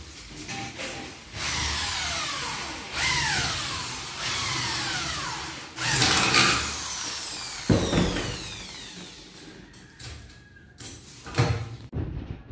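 Corded power tool, most likely an angle grinder, run in short bursts against galvanised metal furring channel. Its whine falls away each time it is released and spins down, with a sharp metal knock about two-thirds of the way through.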